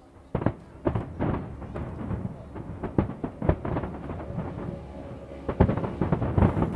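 Aerial firework shells bursting one after another in a dense barrage of booms and cracks, beginning a moment in.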